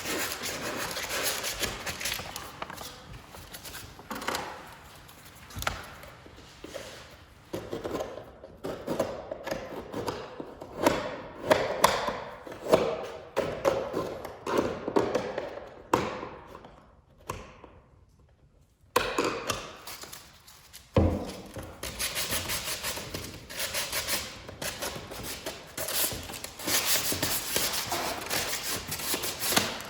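150-grit sandpaper rubbed by hand over painted wooden crown molding in irregular strokes, with a few knocks. The sanding takes off old paint so the patching compound will grip. It stops briefly a little past the middle, then resumes.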